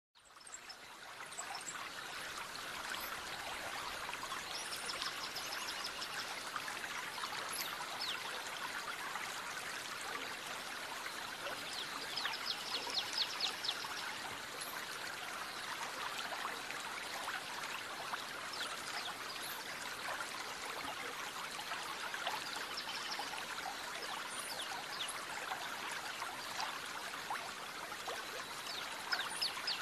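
Aquarium water trickling steadily, fading in over the first second. Now and then a short run of rapid high ticks rises above it, a few seconds apart.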